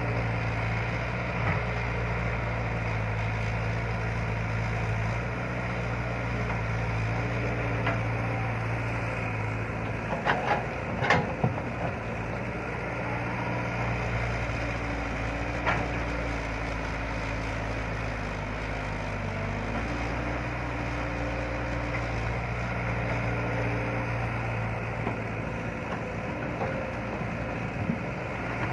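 Excavator's diesel engine running steadily, its note shifting a few times as it works. A cluster of sharp knocks comes about ten seconds in, and single knocks follow a few seconds later and near the end.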